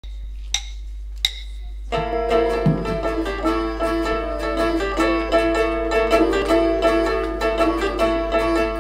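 Two sharp clicks count in, then about two seconds in the band starts playing: acoustic guitars and other plucked strings pick out a tune. A steady low electrical hum runs underneath.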